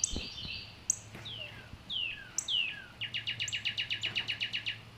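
Birds chirping: short high chirps and several downward-sliding whistled notes, then a rapid trill of about eleven notes a second through the second half.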